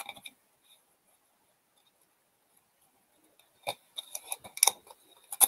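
Trading cards being handled and a foil card pack wrapper picked up: short papery clicks and crinkles at the start and again over the last couple of seconds, quiet in between.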